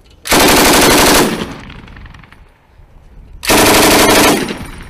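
M240B 7.62 mm machine gun firing two short bursts of rapid shots, each about a second long and a few seconds apart, each trailing off in an echo.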